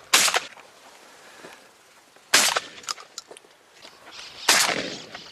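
Gun firing three sharp shots about two seconds apart. Each shot fades quickly, and the last rings out a little longer.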